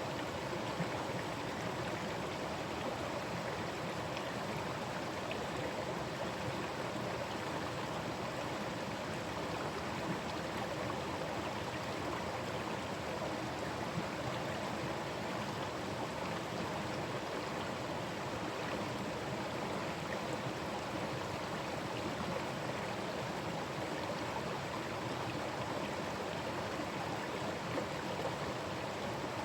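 Forest stream running over rocks: a steady, continuous rush and burble of flowing water.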